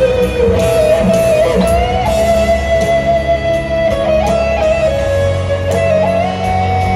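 Live rock band heard through a large arena PA, led by an electric guitar solo on a Les Paul-style guitar. It holds long sustained notes with slow string bends over bass, drums and keyboards.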